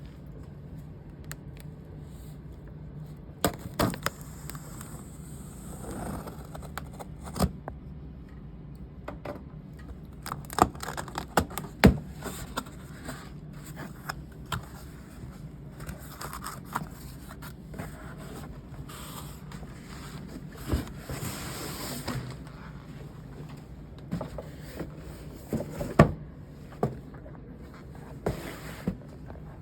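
A boot box and its packing being handled and opened: scattered knocks, scrapes and rustles, over a steady low hum.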